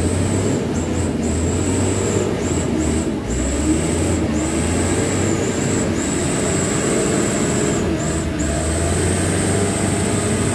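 A loaded light cargo truck's diesel engine labouring as it crawls through deep mud, its pitch rising and falling with the throttle. A steady high-pitched whine runs over it, cutting out briefly a few times.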